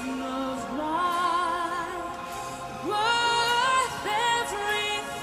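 Symphonic metal song played live: a female lead singer holding long notes with vibrato over the band.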